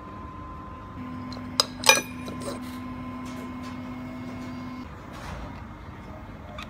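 Benchtop microcentrifuge being loaded: two sharp plastic clicks with a short ring about two seconds in, as tubes and rotor parts are handled, over a steady low hum that stops about five seconds in.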